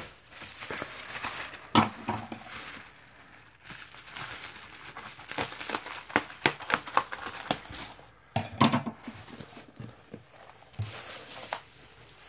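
Bubble wrap crinkling and rustling as it is pulled and cut open with scissors, with a dense run of sharp crackles and snips in the middle.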